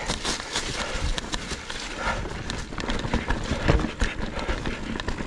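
Ibis Ripmo mountain bike rattling over rough, rocky trail: irregular knocks from tyres, frame and drivetrain over a steady rush of tyre and wind noise.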